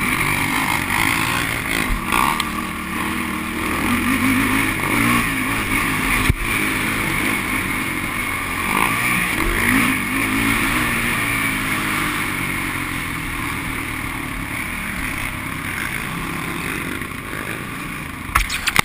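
Sport quad's engine being ridden hard, its pitch rising and falling with the throttle through the track's turns and straights, heard from a helmet-mounted camera. A single sharp knock about six seconds in.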